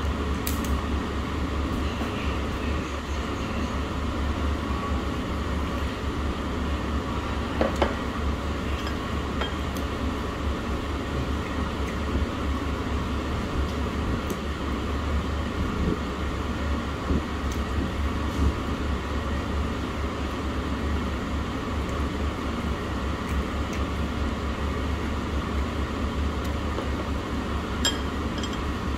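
Steady low hum of restaurant room noise, with a few scattered clinks of dishes and cutlery.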